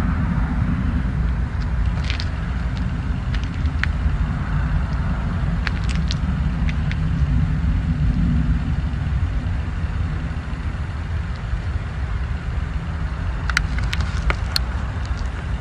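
A steady low roar coming from the night sky, with a few faint clicks here and there; the unexplained aerial roaring noise that was heard on the ground.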